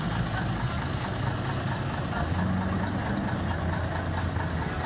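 Engine of a vintage American fire truck running at low revs, a deep steady rumble with a slight rise in pitch and strength about halfway through as the truck creeps forward.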